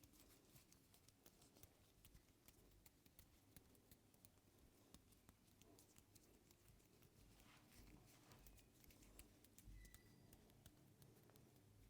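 Very faint head massage sounds: hands working on hair and scalp, with many small crackles and light taps.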